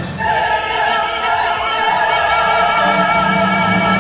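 An operatic voice holding a long note with vibrato over a live opera orchestra, with a low sustained orchestral note coming in about three seconds in.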